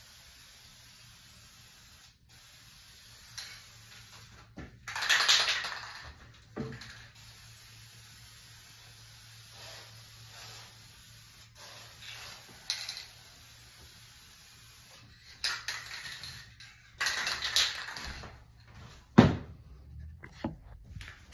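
Aerosol can of Helmsman Spar Urethane spraying clear coat in several short bursts, the longest about five seconds in and again about seventeen seconds in. A sharp knock comes about nineteen seconds in.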